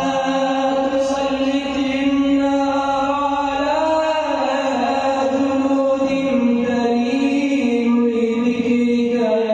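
A sheikh's solo male voice chanting an Islamic religious recitation in a melodic, drawn-out style. He holds long notes that glide slowly from one pitch to another.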